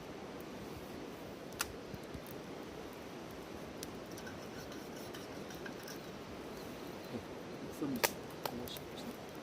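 Wood campfire burning with a steady hiss and a few sharp crackling pops, one about a second and a half in and a small cluster near the end.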